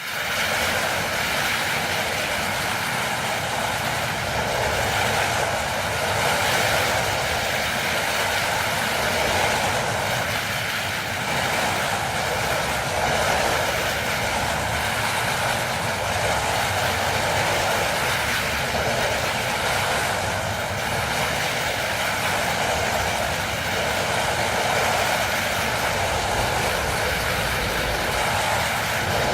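Designed sci-fi sound effect of electric energy particles rapidly whizzing past in repeated passes: a dense, continuous hiss that swells and eases every few seconds.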